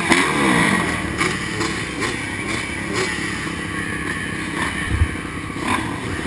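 Motocross bike engines running at the start gate, revving up and down at first and then settling to a steady drone.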